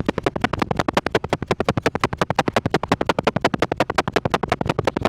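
Car engine giving a rapid, even train of sharp pulses, about nine a second.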